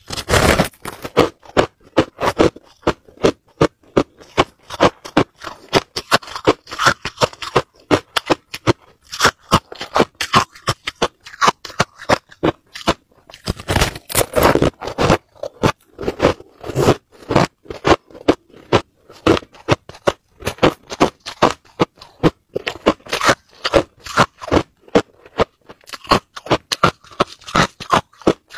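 Close-miked crunching and chewing of crushed white ice: a rapid, uneven run of sharp crunches. Louder bites come just after the start and about fourteen seconds in.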